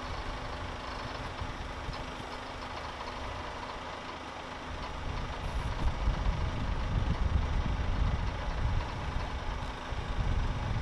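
Truck engine running steadily, with a steady hum, to drive the truck-mounted hydraulic crane lifting a lathe. A low rumble grows louder about halfway through.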